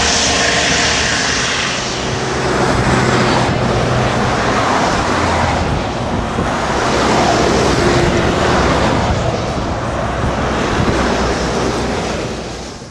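Trauma helicopter's rotors and turbine engine running loud and steady as it climbs away, with a rushing wash of rotor noise. The sound drops off near the end.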